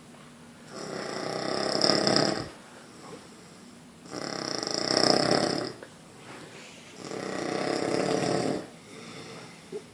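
A sleeping person snoring very loudly, with much bass: three long snores, each lasting about two seconds and coming about every three seconds.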